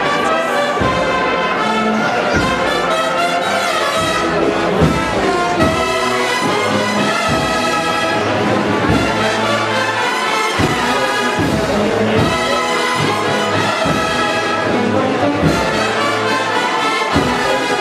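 Brass band playing a processional march: sustained trumpet and trombone chords over a steady drum beat.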